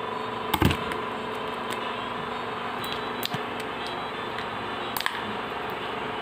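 Handling noise: a sharp knock about half a second in and a few light clicks, the clearest near five seconds, over a steady electrical hum.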